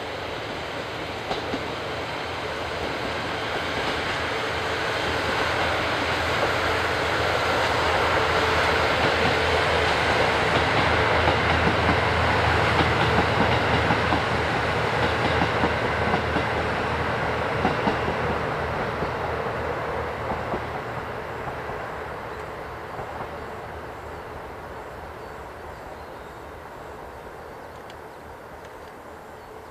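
Diesel train passing on the line: the rumble of engine and wheels on the rails grows, is loudest about halfway through, then fades away as it recedes.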